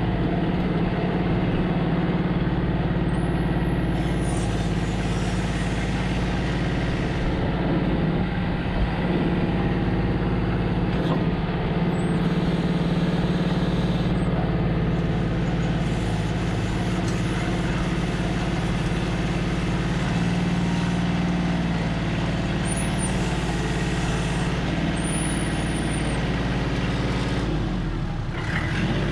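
Diesel engine of a Kubota L35 tractor loader backhoe running steadily.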